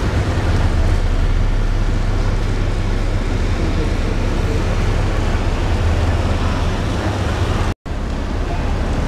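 Steady low rumble with an even hiss over it, aboard a river cruise ship lying in a deep lock chamber. It cuts out for an instant near the end.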